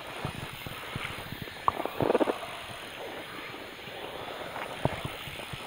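Irregular light clicks and taps from tackle being handled while fighting a fish from a float tube, over a steady hiss of wind and water. A short, louder scuffing burst comes about two seconds in.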